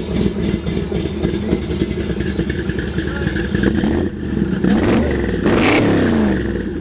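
Plymouth Barracuda V8 idling with an uneven, pulsing beat from the exhaust. About five seconds in, one throttle blip sends the pitch up, and it falls back to idle.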